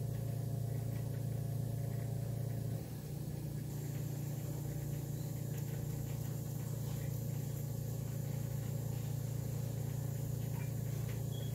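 Steady low mechanical hum of a running motor, dipping slightly in level about three seconds in, with a few faint soft ticks from handling.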